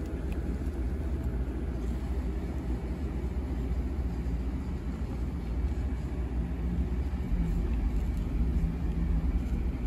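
Steady low background rumble, with a faint hum coming in during the second half.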